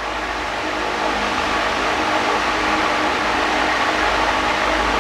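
Steady machine hum with a hiss, like a running fan motor, growing a little louder in the first second.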